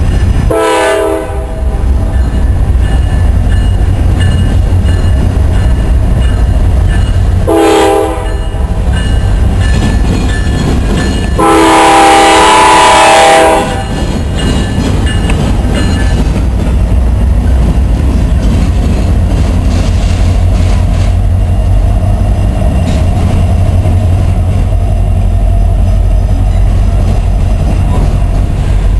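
Norfolk Southern diesel locomotive's air horn sounding for a grade crossing: two short blasts, then a longer one of about two seconds. After that the GE Dash-9 and EMD SD70M-2 locomotives rumble past, followed by the steady rolling rumble and clatter of RoadRailer trailers on the rails.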